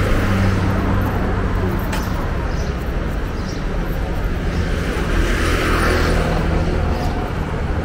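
Street traffic: vehicle engines running steadily with a low hum, and a vehicle going past about five to six seconds in.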